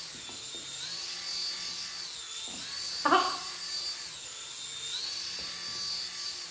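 Force1 Orbiter flying orb ball's small propeller motors whining, the pitch stepping up and down again and again as the orb climbs and hovers. A short, loud exclamation about three seconds in.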